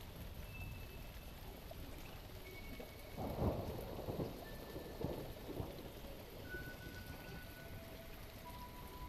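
Steady rain with a roll of thunder that breaks about three seconds in and rumbles on in a few smaller swells.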